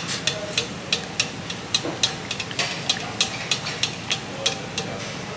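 Chopsticks stirring soup in a stainless steel steamboat pot, clinking against the metal about three times a second and stopping shortly before the end. The broth is being swirled as beaten egg goes in, egg-drop style.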